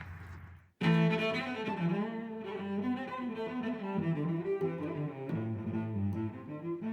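Music with low bowed strings like a cello, playing slow held notes. It starts suddenly about a second in, after a brief silence.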